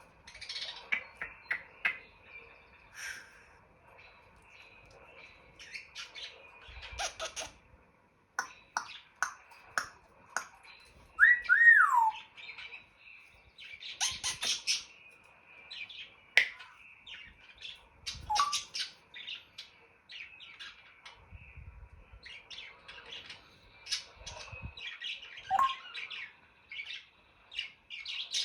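African grey parrot calling in a string of short clicks, chirps and squawks, with a loud two-note whistle falling in pitch about eleven seconds in.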